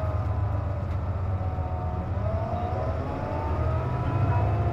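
Inside a KC-JP250NTN city bus under way: the diesel engine runs with a low steady note, over which a wavering whine rises and falls in pitch. This whine is the odd noise the bus makes when its air conditioning is running.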